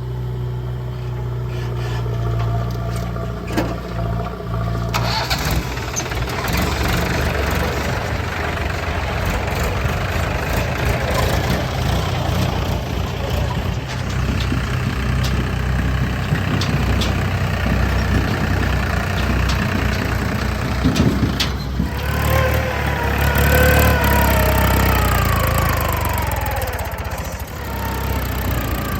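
Diesel machinery working at a dig: the engines of a backhoe loader and farm tractors running steadily, with a higher, wavering whine for a few seconds near the end.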